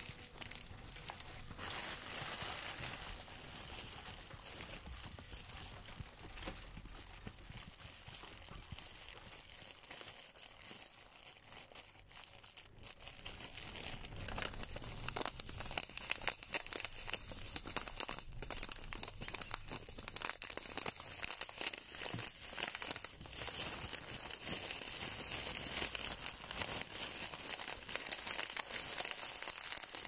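ASMR crinkling and crackling, a dense run of tiny clicks that gets louder about halfway through.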